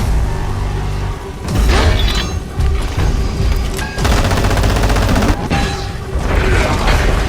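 Action-film score under battle sound effects: a heavy boom about one and a half seconds in, then a burst of rapid machine-gun fire from about four seconds, with more impacts after it.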